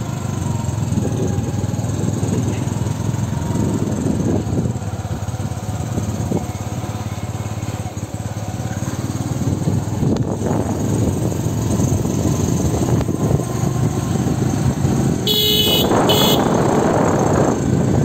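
Engine and road noise from on board a moving vehicle. Near the end a horn sounds twice, a longer blast followed by a short one.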